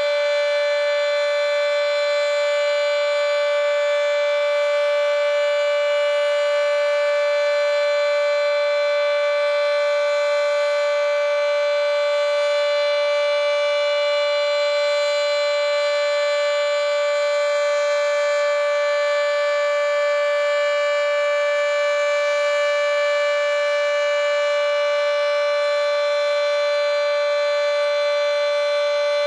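Federal Signal 2T22 three-phase dual-tone outdoor warning siren sounding its steady Alert tone, its top intake completely blocked. The pitch holds steady throughout, with no rise or fall.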